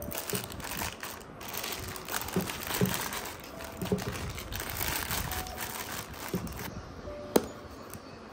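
Rustling and crinkling as bangles and jewelry are handled and packed into a zippered pouch, with light clinks here and there and one sharp click near the end. Faint background music underneath.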